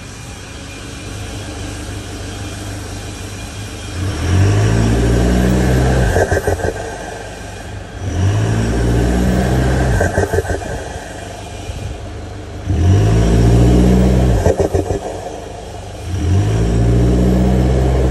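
Toyota N80 Hilux turbo-diesel engine revved four times from idle. Each rev rises in pitch and is held for about two seconds, then a fluttering chatter follows as the throttle closes: turbo flutter, or compressor surge.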